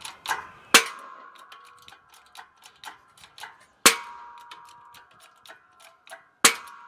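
Three sharp metallic bangs about three seconds apart, each ringing on briefly, with lighter ticks and clicks between them. They come from a pipe and steel bar being forced down on a seized piston in a Studebaker Commander inline-six block.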